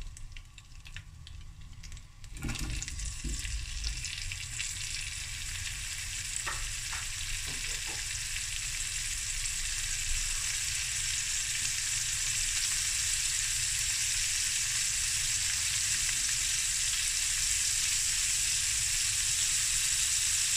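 Boerewors pieces frying in hot oil and garlic-and-herb butter in a pan. The sizzle jumps up about two seconds in as the sausage goes in and grows steadily louder, with a few soft knocks as pieces are placed.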